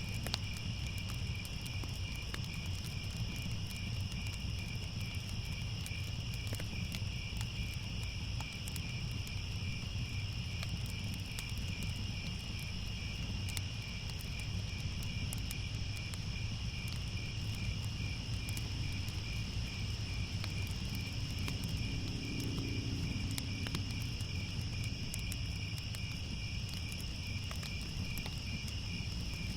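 A steady chorus of crickets trilling without pause, in several high, even pitches, one of them finely pulsing, over a continuous low rumble.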